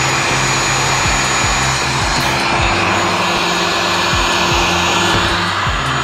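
Handheld Seekone electric heat gun running on its blower, a steady loud rush of hot air with a faint steady whine, as it shrinks heat-shrink sleeving over wiring.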